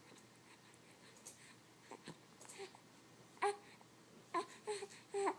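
Newborn baby making short, high-pitched squeaks and little fussy cries, sparse at first and coming more often in the last two seconds.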